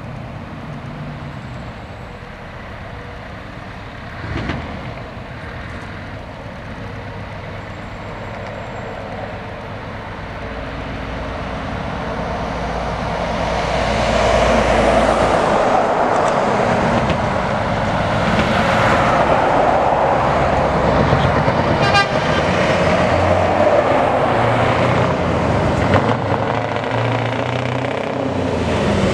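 Scania truck's V8 diesel engine on a slow approach, growing louder over the first half, then running loud and steady as the truck draws close.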